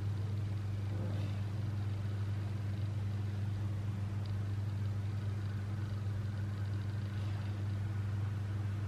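Steady low hum of a kitchen appliance running, even and unchanging.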